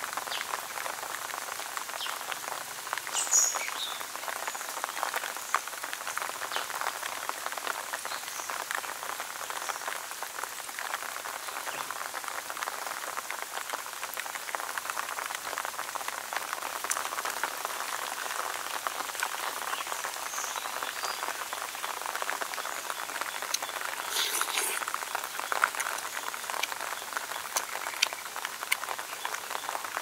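Steady outdoor forest ambience: a dense, fine crackling patter, with a few short high chirps about three seconds in and again near the end.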